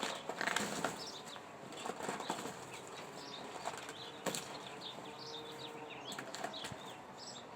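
Irregular rustling, flapping and scraping of mattress fabric and padding being pulled and cut away from the steel springs, with scattered clicks and a few louder bursts.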